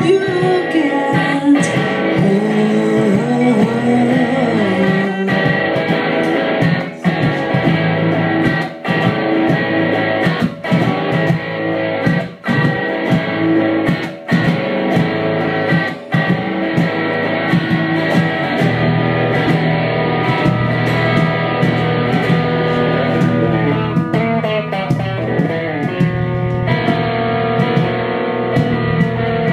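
Two amplified electric guitars played live in a loud rock passage of sustained, ringing chords with bent notes early on. Through the middle stretch the sound drops out briefly about every two seconds.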